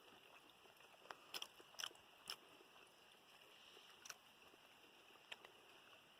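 Near silence with a few faint, short clicks: quiet chewing of a dry beef jerky stick.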